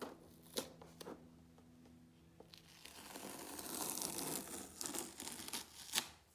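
Tape being peeled off the edge of a painted canvas: a crinkling, tearing rustle that builds from about halfway through, with a few sharp clicks, the last one near the end.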